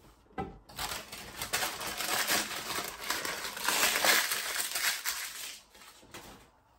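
Paper snack bag crinkling and rustling as it is handled and opened, loudest about four seconds in.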